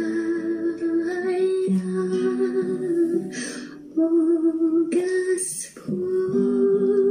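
A woman singing a Christian worship song in long, held notes over musical accompaniment.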